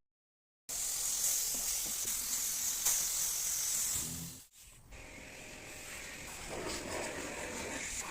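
Steady hiss of compressed air spraying. It starts after a short silence, breaks off briefly about four and a half seconds in, then resumes fuller and a little lower.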